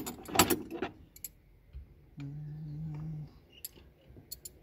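Metal spanners clicking and clinking against each other and the battery terminal: a quick cluster of clicks at the start and a few sharper ticks near the end. A brief low steady hum lasts about a second, a couple of seconds in.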